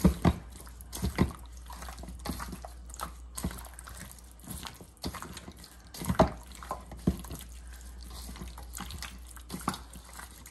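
Pork ribs grilling, with irregular sharp pops and crackles.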